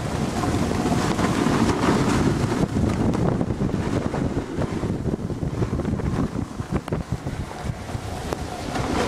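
Wind noise on the microphone of a moving snowboarder, over the hiss and scrape of a snowboard sliding over snow. The noise is rough and unsteady, rising and falling throughout.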